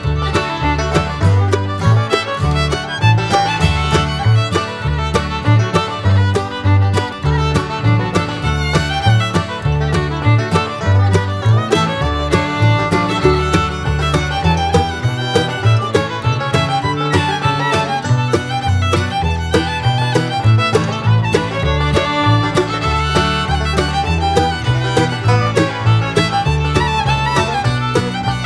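Background music: an upbeat bluegrass-style tune with fiddle, a steady beat and a bouncing bass line.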